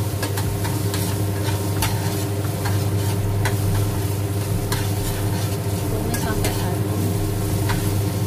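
Minced garlic sizzling in oil in a stainless steel wok, stirred with a metal spatula that scrapes and clinks against the pan at irregular moments, over a steady low hum.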